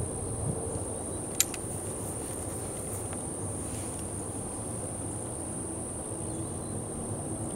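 Wind rumbling on the microphone under a steady high-pitched whine, with one sharp click about a second and a half in as the M1842 rifle musket is readied and brought up to aim.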